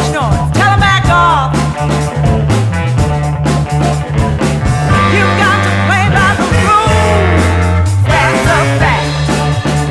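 Recorded band music from a soul-funk album, with a bass line stepping between notes, a steady drum beat and melodic lines sliding over the top.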